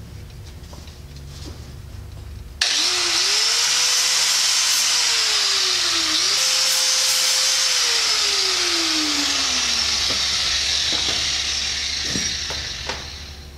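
Cordless drill spinning a flat abrasive disc against the steel top and bottom faces of a truck steer-axle eye, cleaning them. It starts abruptly about two and a half seconds in, the motor pitch rising and falling as the pressure changes, and tapers off near the end.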